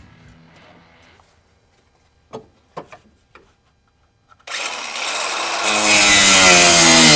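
A few light clicks, then a cutoff wheel spinning up about four and a half seconds in and growing louder about a second later as it bites into a small metal tab, its pitch sagging a little under the load.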